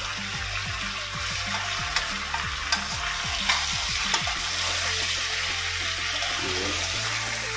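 Chicken wings sautéing with garlic and ginger in a pan, a steady sizzle. They are being stirred, with a few sharp clicks of the utensil against the pan around the middle.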